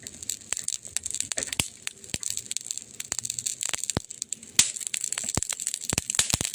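Wood fire crackling: irregular sharp pops over a soft hiss. One louder pop comes about four and a half seconds in, and the pops come thicker near the end.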